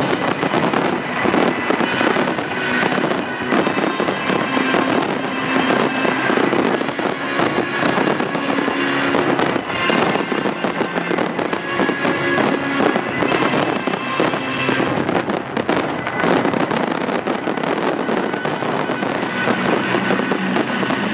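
A fireworks display, with aerial shells bursting in quick, dense succession, many bangs and crackles overlapping, over accompanying music.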